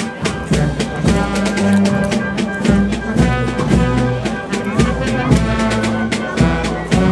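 Procession brass band playing a slow processional march, with sustained brass notes over regular drum strokes.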